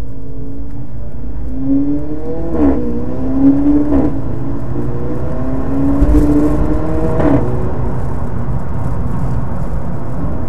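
VW Golf GTI Mk6's turbocharged 2.0-litre four-cylinder, through an APR RSC turboback exhaust, pulling hard with the engine note rising through the gears of its DSG gearbox. Three upshifts, about two and a half, four and seven seconds in, each give a short sharp crack, the 'DSG fart', as the pitch drops.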